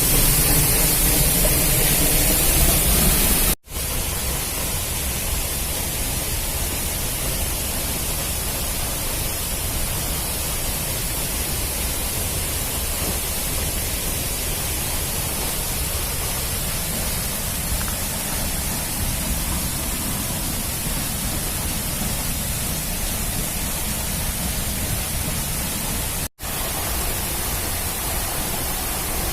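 Steady rushing of a waterfall, an even hiss of falling water. It cuts out abruptly twice, about four seconds in and near the end, and is brighter before the first cut.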